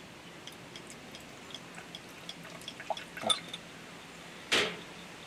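Ramune soda being poured from its bottle into a drinking glass: scattered drips and small clicks, with a quick cluster of louder clinks about three seconds in. Near the end comes one short, loud rush of noise.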